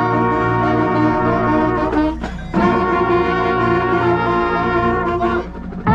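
Marching band brass and saxophones playing long held chords, with a silver trumpet sounding loud and close. The chords break off briefly about two seconds in and again just before the end.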